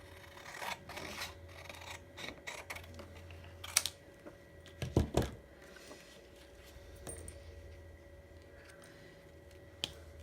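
Scrapbook papers and craft pieces being handled and laid out on a desk: light rustling and tapping, a sharp click a little before four seconds in, a couple of heavier knocks about five seconds in, and another click near the end, over a faint steady hum.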